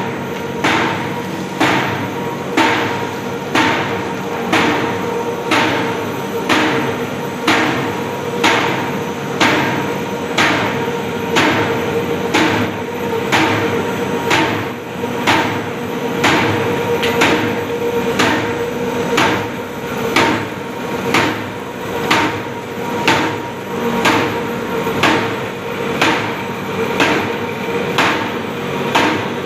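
Cardboard sheet-cutting machine running: a steady mechanical hum with a regular clack about three times every two seconds, each clack a stroke of the cutter as it cuts the board into sheets.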